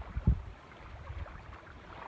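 Wind buffeting the microphone in uneven gusts, with a single low thump just after the start.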